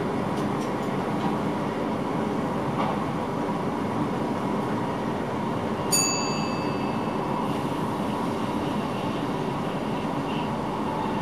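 Electric passenger train running at speed, heard inside the driver's cab: a steady rumble of wheels on the rails. About six seconds in, a single short bell-like ding rings out and fades within a second.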